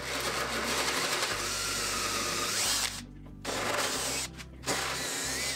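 Power drill boring out holes in a wooden butcher-block top for threaded inserts: one long run of about three seconds, then two short bursts.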